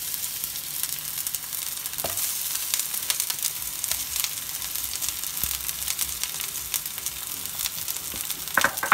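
Sliced onions sizzling in hot oil in a frying pan, a steady hiss with small crackles.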